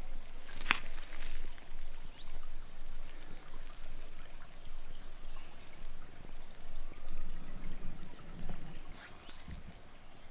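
River water running and babbling steadily, with one sharp click under a second in and a few faint ticks later.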